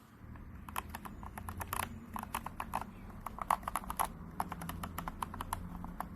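Mechanical keyboard fitted with JERRZI Seashells linear switches being typed on: a quick, irregular run of keystroke clacks, several a second.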